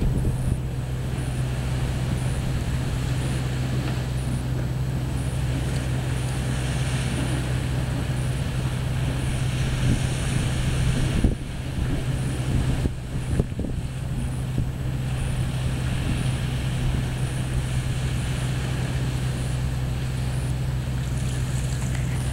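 Wind buffeting the camera microphone as a steady low rumble, over the wash of small waves breaking on a sandy shore. The wind briefly eases about halfway through.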